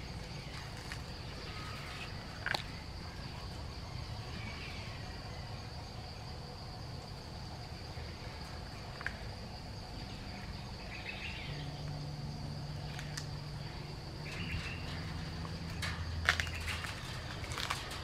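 A steady high-pitched insect drone, with scattered crackles and rustles of corn husk and chewing as a gibbon eats corn on the cob. A denser cluster of crackles comes near the end.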